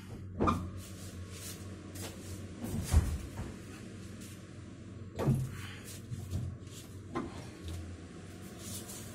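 Steady low hum of cold-room refrigeration equipment, with several knocks and thumps over it, the loudest about three seconds in.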